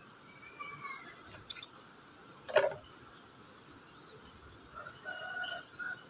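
Dawn ambience beside a flowing stream: a steady high insect hum, short bird calls in the first second, a sharp knock about two and a half seconds in, and a rooster crowing near the end.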